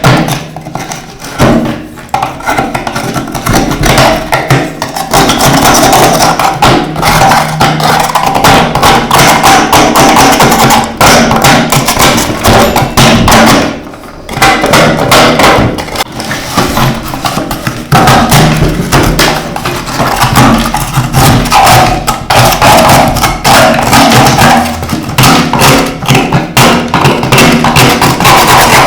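Background music with a tapping, percussive beat.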